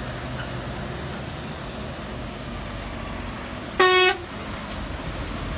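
A single short horn toot from a passing Mercedes-Benz lorry, one steady note lasting about a third of a second, a little under four seconds in, over the steady rumble of engine and road noise.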